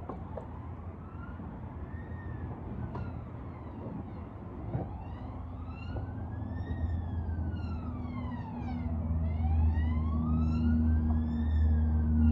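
Emergency-vehicle siren wailing, sweeping slowly up and down about once every four to five seconds, with a low steady hum that grows louder in the second half.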